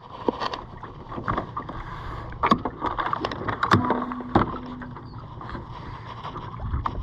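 Small aluminium jon boat under way on a lake. There is steady running and water noise, with scattered sharp knocks and rattles from the boat, and a brief low hum about four seconds in.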